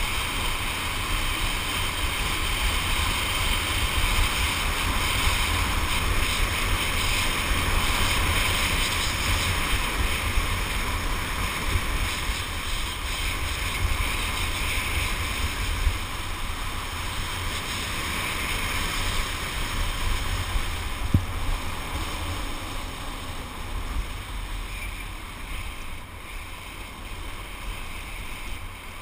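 Wind rushing over a GoPro action camera's microphone during a fast ski-slope descent, with a steady rumble and the hiss of sliding over packed, groomed snow. A single sharp knock a little past twenty seconds in.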